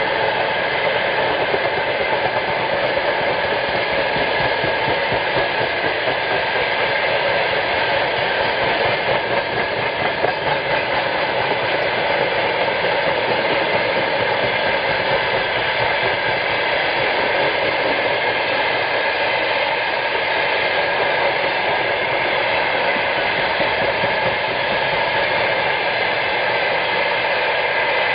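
Freight train of railway tank wagons rolling past at speed: a loud, steady rushing rumble of steel wheels on rail that holds unchanged.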